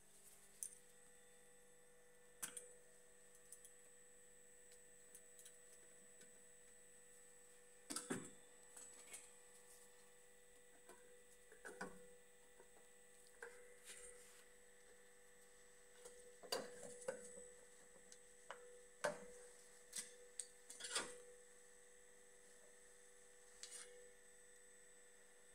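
Scattered clicks and knocks of paint tins and containers being picked up and set down on a workbench, in clusters, over a faint steady electrical hum.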